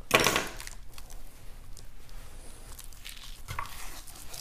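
Handling noise from working a pork rib membrane loose with a small knife and paper towel: a short, louder rustle right at the start, then quiet scraping and rustling.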